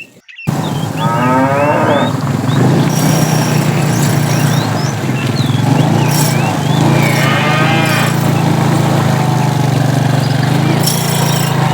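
Cattle mooing: three long calls, about a second in, near the middle and near the end, over a steady low engine hum, with birds chirping faintly.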